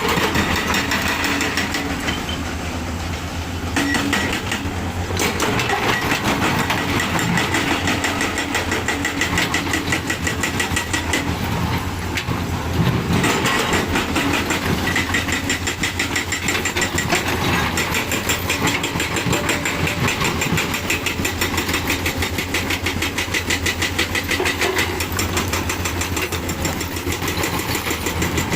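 Diesel engine running steadily with a fast, even beat, easing off briefly a few seconds in.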